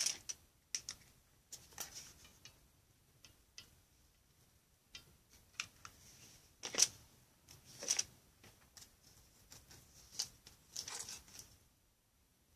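Scattered light taps, clicks and rustles as a foamboard disc and a craft-stick-framed cellophane panel are handled and set against each other on a cutting mat. The strongest clicks come about 7 and 8 seconds in.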